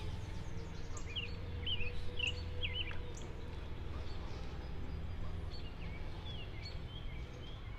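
Birds calling, a quick run of short chirps in the first few seconds and a few fainter ones later, over a steady low rumble of outdoor background noise.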